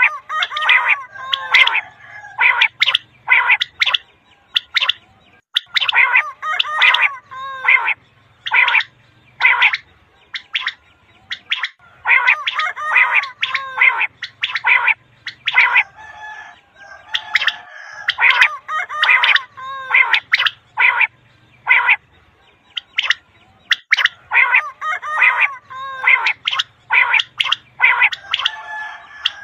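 Common quail (batair) calling: runs of short, sharp notes, several a second, broken by brief pauses. It is the kind of quail call that hunters play to draw quail in for netting.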